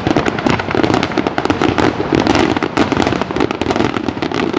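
Finale barrage of aerial firework shells bursting, many reports overlapping so closely that they run together into a continuous, loud crackling rumble with no gaps.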